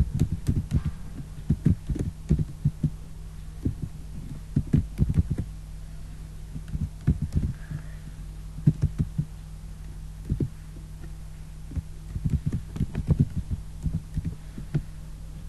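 Computer keyboard typing in irregular bursts of dull, low taps, over a steady low electrical hum.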